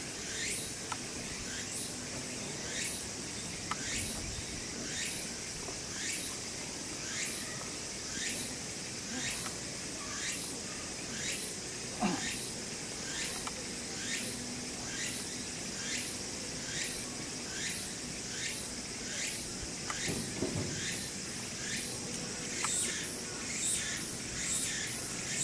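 An insect's song outdoors: a call repeated about once a second, each one sweeping down in pitch, over a steady high drone.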